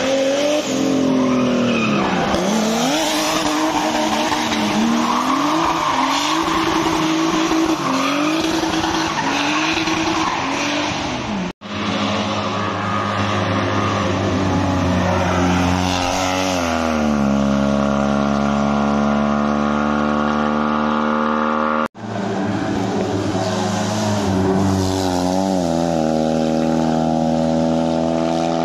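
Race car engines at a hill climb. First a car drifts through a bend, its engine revving up and down sharply over squealing tyres. After two abrupt cuts, cars drive up the road with the engine note climbing and then holding steady.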